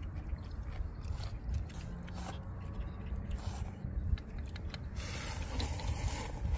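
People eating ramen noodles: scattered light clicks of chopsticks on plastic bowls, then a long noisy slurp of noodles from about five seconds in. A steady low rumble runs underneath.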